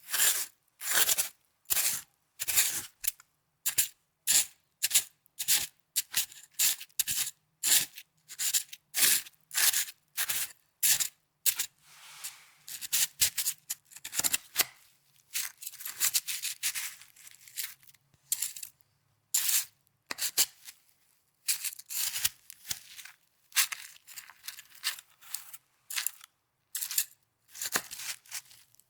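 Snow being crunched and squeezed as an ASMR trigger: a run of short, crisp crunches, about one or two a second, that run together into a longer, busier stretch about halfway through.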